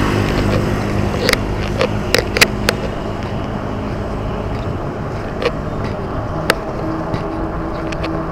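A motor vehicle engine running steadily close by, with sharp clicks and knocks scattered through, several in quick succession in the first three seconds.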